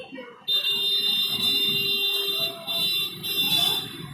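A loud, high-pitched buzz that starts about half a second in and swells and dips in strength, over a fainter steady lower hum.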